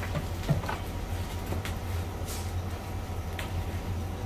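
Steady low machinery hum, with a few scattered light clicks and ticks from gloved hands pulling meat off boiled lamb heads on a steel tray.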